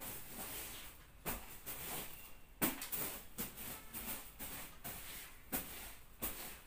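A short hand broom brushed quickly across a bed sheet: about eight swishing strokes, one roughly every two-thirds of a second.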